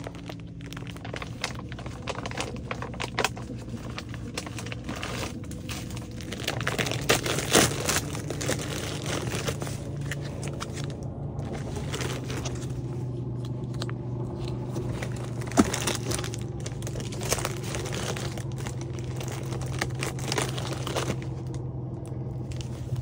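MRE pouch packaging and plastic-wrapped packets crinkling and rustling as they are torn open and handled, with many small crackles throughout. A steady low hum runs underneath.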